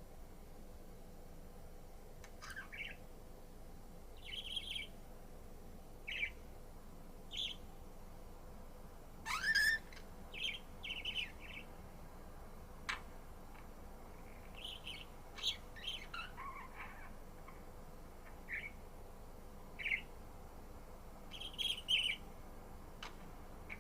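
Budgerigar chirping: short separate chirps and warbles every second or two, with a louder rising call about nine seconds in. A faint steady hum runs underneath.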